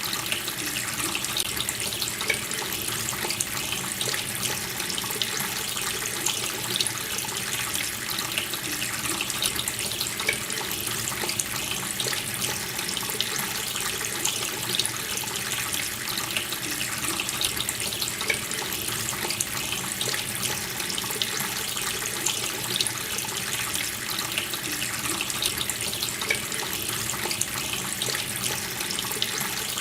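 Water running steadily from a tap into a sink, an unbroken splashing stream.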